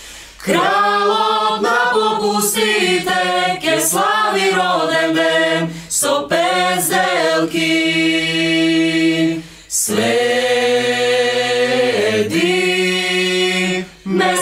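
Mixed choir of men's and women's voices singing a cappella in Macedonian, with long held chords and a short breath break about ten seconds in.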